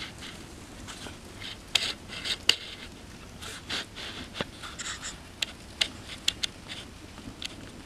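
Fire crackling, with irregular sharp pops and snaps, the loudest two a little under two seconds and about two and a half seconds in.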